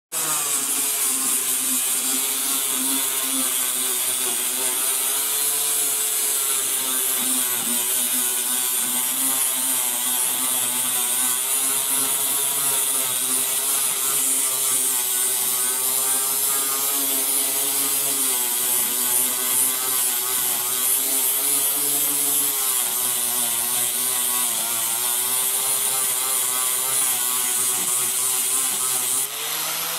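Chicago Electric angle grinder with a flap disc grinding body filler off a car roof: a steady motor whine that sags and recovers as the disc is pressed, over a loud abrasive hiss. Near the end the disc lifts off the surface and the motor speeds up.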